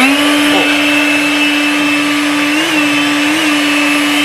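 EGO LB7654 56-volt cordless brushless leaf blower running: its fan spins up quickly at the start, then holds a loud steady whine over a rush of air, with two brief small wobbles in pitch near the end.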